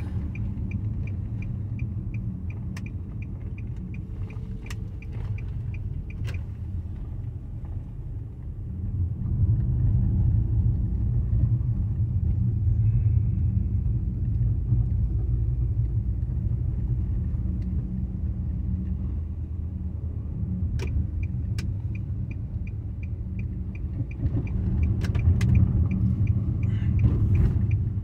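Car driving, heard from inside the cabin: a steady low rumble of engine and road noise that grows louder about a third of the way in. A turn signal ticks evenly, about two to three ticks a second, at the start and again near the end, with a few scattered clicks.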